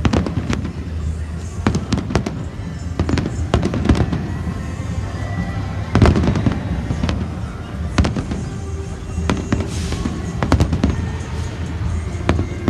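Fireworks display going off: a rapid series of bangs and crackling bursts, the loudest bang about halfway through, over background music.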